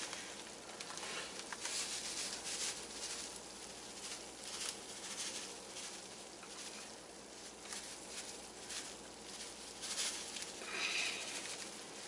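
Panko breadcrumbs shaken from a plastic bag, pattering unevenly onto a hot casserole, with the bag rustling.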